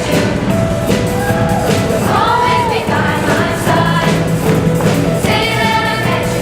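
Choir singing held notes over instrumental accompaniment with a steady beat.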